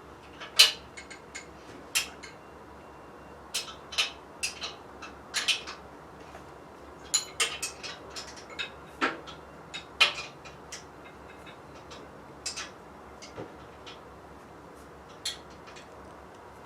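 Irregular sharp metallic clinks and taps of a wrench and bolt hardware against metal as a sheet-metal belt guard is bolted down. They come thick for the first ten seconds or so, then thin out to a few scattered taps.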